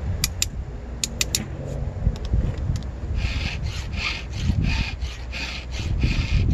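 Round file rasping across the cutter teeth of a chainsaw rip chain being hand-sharpened at 10 degrees, with a few sharp metal clicks in the first two seconds. From about three seconds in come steady forward strokes, about two a second, with the file not cutting on the backstroke.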